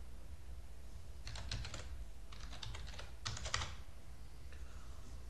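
Typing on a computer keyboard: a password tapped out in three quick runs of keystrokes, about a second, two seconds and three seconds in, over a low steady hum.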